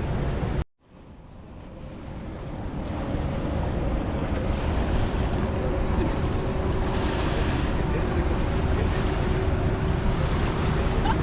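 Steady rushing of water with wind buffeting the microphone and a faint steady hum underneath. The sound cuts out suddenly just under a second in and fades back up over the next few seconds.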